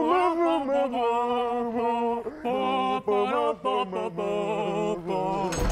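Men's voices singing a wordless football supporters' chant, held notes stepping up and down in pitch, with a thump near the end.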